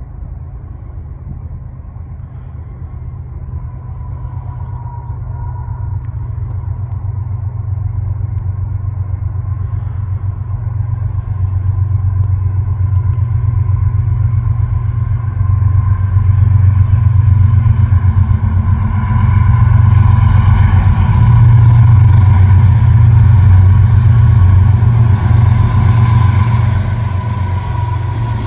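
Diesel locomotives leading a CN freight train, their engines running with a deep, steady rumble that grows louder as the train approaches, with a thin whine above it.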